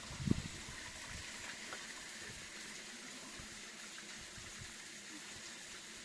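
Steady hiss of water, with one soft low thump shortly after the start.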